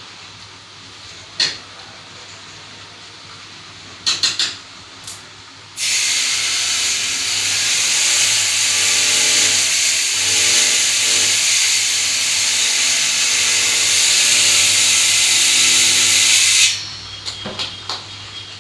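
A loud, steady hiss that starts suddenly about six seconds in and cuts off about eleven seconds later. A few light clicks and taps come before and after it.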